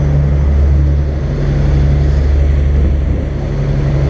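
Sportfishing charter boat under way at speed: its engines make a steady low drone over the rush of the churning wake.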